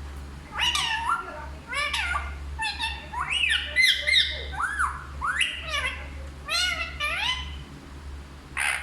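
Indian ringneck parrot calling in a rapid run of shrill squawks and chattering notes, each swooping up and down in pitch, with short gaps between calls.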